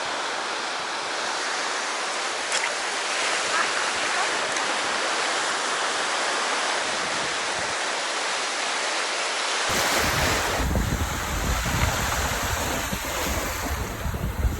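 Steady wash of sea surf on the shore, with wind buffeting the microphone from about ten seconds in.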